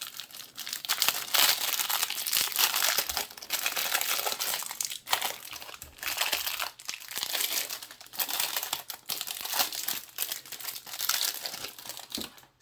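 Baseball card pack wrappers being torn open and crinkled by hand: dense, irregular crackling with brief pauses.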